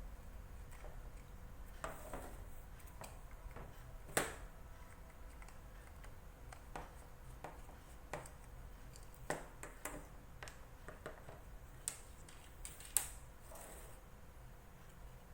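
Scattered light clicks and taps of a screwdriver and small parts being handled while the screws of an opened plastic bag sealer are taken out, over a faint steady hum.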